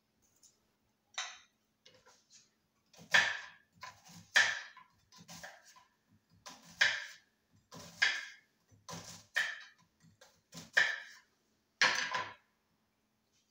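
Kitchen knocks and clatters during food preparation, about a dozen sharp strikes roughly a second apart, each dying away quickly.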